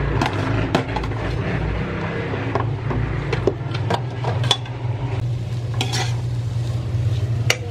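Diced vegetables sautéing in hot oil in an enamel pot, a spatula scraping and knocking against the pot as they are stirred. A steady low hum runs underneath.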